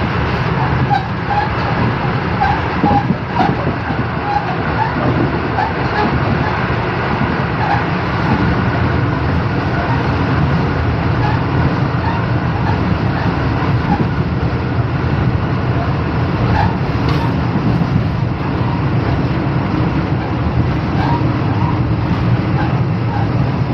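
Passenger train running at speed, a loud steady rumble of wheels on track and running gear.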